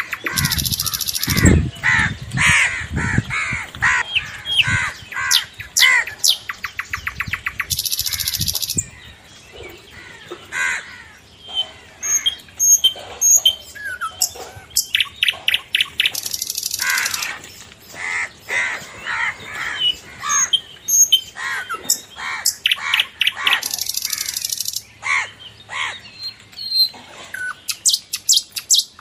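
Birds calling all around, many short chirps and calls in quick succession with several harsh, buzzy chattering bursts.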